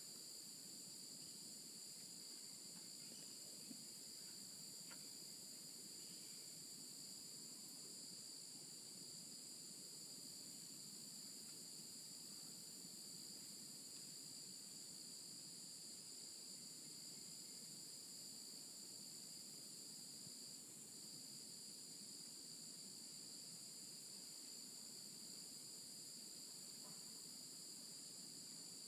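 Faint, steady chorus of tropical insects: two unbroken high-pitched tones with a hiss above them, never pausing.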